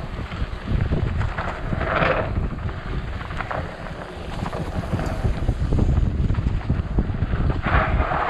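Wind buffeting the microphone of a camera on a mountain biker riding a dirt trail, over a steady low rumble, with a brief louder hiss about two seconds in and again near the end.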